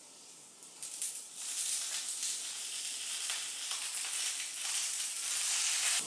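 Sliced eggplant tipped into a wok of squash frying in oil, then stirred with a wooden spatula: the oil sizzles from about a second in, with a few scrapes and knocks of the spatula against the pan.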